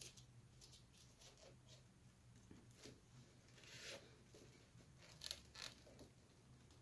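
Faint rustling and scraping of a rolled paper tube being threaded and pulled through a paper-tube weave, in scattered soft strokes, the loudest two short ones a little after five seconds in.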